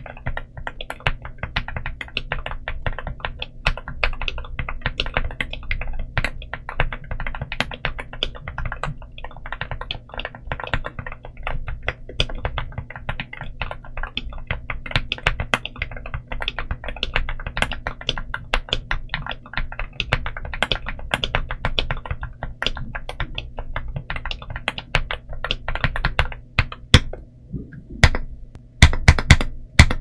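Fast typing on a Rainy75 mechanical keyboard with Akko Rosewood linear switches on a polycarbonate plate and dye-sub PBT Cherry-profile keycaps: a dense, steady run of keystrokes with a deep, thocky bottom-out. Near the end the typing pauses briefly, then gives way to a few louder, separate key strikes.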